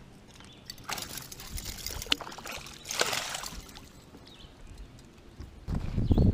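Water splashing and trickling in a few short bursts at the side of a fishing boat, as a freshly caught bass is handled over the water. A louder low rumble starts near the end.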